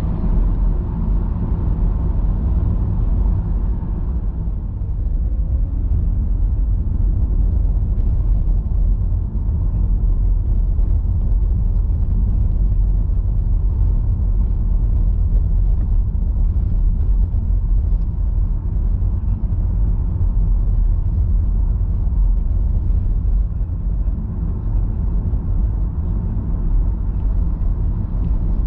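Car driving along a city street, heard from inside the cabin: a steady low rumble of engine and road noise.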